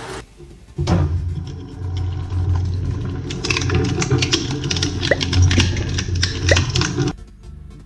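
Twin-shaft shredder running: a steady low motor hum starts abruptly about a second in as the steel cutter discs turn through slime. A dense run of sharp clicks joins in past the halfway point, and everything cuts off suddenly near the end.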